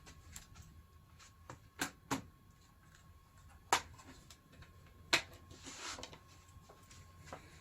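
A handful of sharp clicks and taps, the loudest a pair about 2 seconds in and two more near 4 and 5 seconds, with a short soft rustle after them: handling a game disc and its case while loading it into a PS3 Slim.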